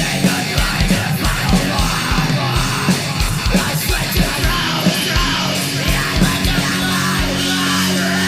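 Heavy metal music: distorted guitars and a fast kick drum under yelled vocals. Near the end the drums drop out and a held guitar chord rings on.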